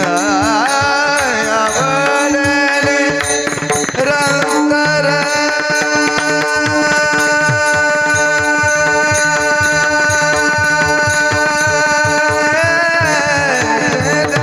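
Devotional kirtan music: a singer's voice wavers, then holds one long note for several seconds over a steady drone and regular drum strokes.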